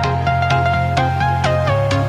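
Background music: a melody sliding between notes over a steady bass, with a regular beat.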